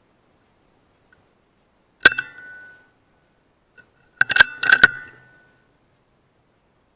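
Air Arms S200 PCP air rifle firing once about two seconds in: a single sharp crack with a brief metallic ring. A little over four seconds in comes a quick run of three or four metallic clicks as the bolt is cycled to load the next pellet.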